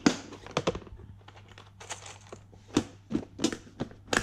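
Irregular clicks, knocks and rattles of plastic small-parts organiser boxes being handled and rummaged through, with the sharpest knocks at the start and near the end.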